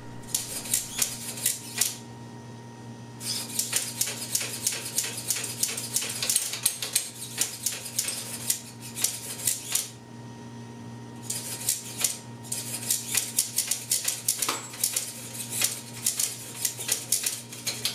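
Rapid, irregular clicking and clattering from a servo-driven 3D-printed robot arm thrashing out of control. Its sub-micro elbow servo has stripped gears that slip and try to catch back up to their commanded position. The clatter pauses briefly about two seconds in and again about ten seconds in, over a steady low hum.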